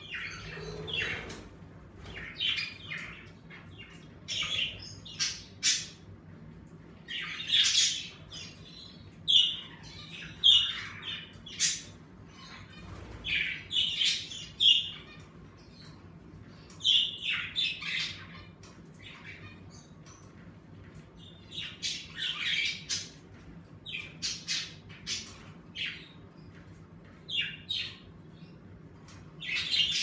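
A flock of budgerigars chirping and squawking in short clusters of high chatter with brief pauses between, over a faint steady hum.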